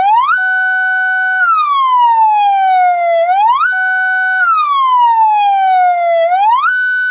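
Round 12-volt, 30-watt electronic siren horn speaker sounding loud, its third tone with the button held down: a wail that rises quickly to a high note, holds it about a second with a lower second tone beneath, then slides slowly down, repeating about every three seconds.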